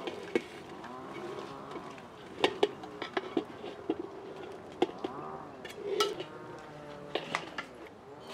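A metal serving spoon clinking and scraping against a metal cooking pot and tray as saffron rice is dished out, in scattered sharp knocks a second or so apart.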